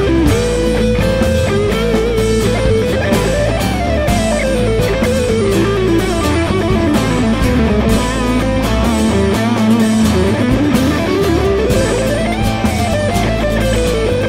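Instrumental rock arrangement of guitars: a lead guitar melody that climbs and falls in long runs, over strummed acoustic guitar, electric bass and a steady beat.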